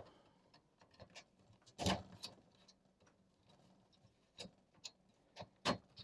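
Faint, scattered clicks and ticks of a small screwdriver working the screw terminals on an alarm control panel's terminal strip as they are loosened, with louder clicks about two seconds in and near the end.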